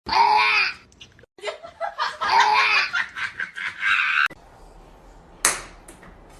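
A person laughing loudly in two bursts, the second longer, followed by a single sharp click near the end.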